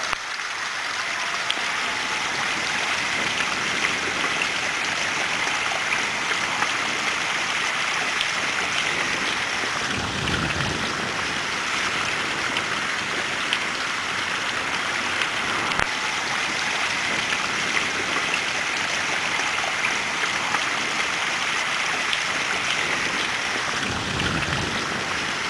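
Water of a pondless waterfall running steadily down lava rock on a cinder block wall and splashing into a rock-filled well, a continuous even splashing.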